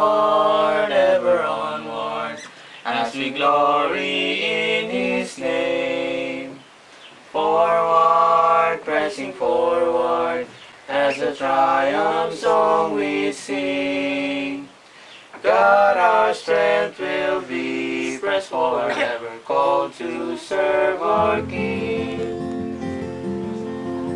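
A song: a voice sings in phrases of a few seconds each, with short breaks between them. About three seconds before the end the singing stops and an instrumental passage takes over.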